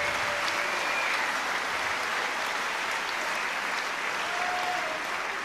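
Arena crowd applauding steadily, congratulating both boxers at the end of the bout.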